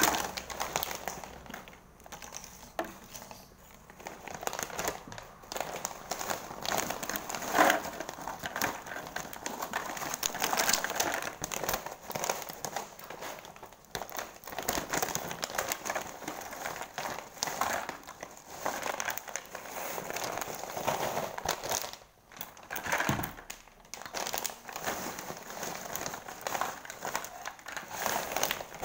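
Crisp fried chips being poured from a plastic snack bag into a plastic jar: the bag crinkles while the chips rustle, clatter against the jar and spill onto the table, in irregular bursts with a few short pauses.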